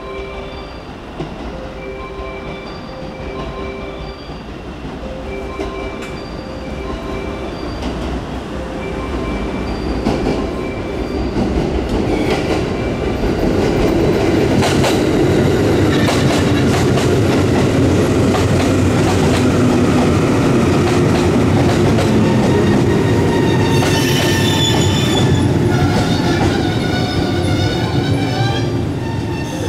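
A repeating electronic warning tone sounds about once a second while a JR 117-series electric train approaches. The train's running noise then builds as it pulls in along the platform, with clicks of the wheels over rail joints. Near the end the brakes squeal as it slows to a stop.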